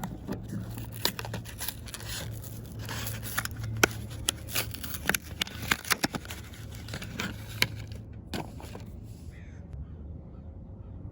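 Bulb packaging being opened by hand to take a bulb out: a run of sharp clicks and crackles that thins out about eight seconds in.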